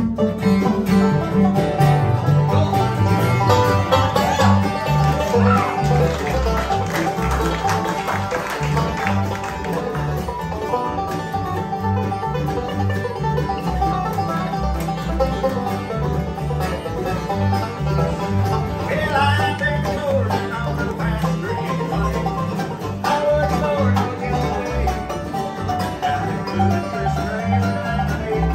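Acoustic bluegrass band playing live: five-string banjo, mandolin, acoustic guitar and upright bass, with no singing, an instrumental break over a steady plucked bass beat.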